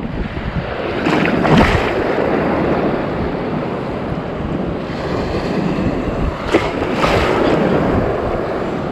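Rough surf breaking on the beach, with wind buffeting the microphone. It swells louder about a second and a half in and again around seven seconds in.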